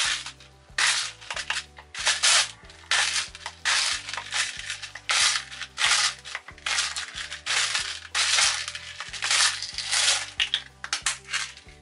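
Hand-twisted salt grinder crunching coarse pink salt crystals, in a quick, uneven run of short grinding bursts that stop near the end. Background music with a bass line plays under it.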